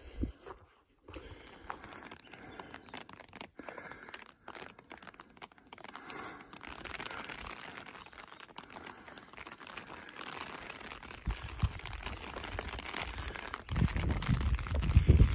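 A hiker walking a rocky trail: crinkling rustle and crunching steps, with a steady hiss that starts about halfway through and grows louder, and heavy low rumbling buffets on the microphone near the end.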